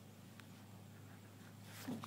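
Near silence: a faint steady low hum, with a soft rustle rising near the end.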